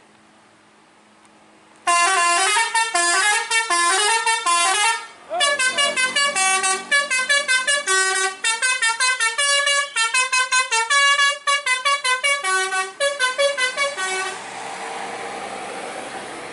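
Basuri V3 telolet musical horn on a Marita tour bus playing its fast multi-note tune, quick chiming notes in several tones at once, starting about two seconds in, with a brief break around five seconds, and stopping about fourteen seconds in. After it, a steady rush of vehicle noise.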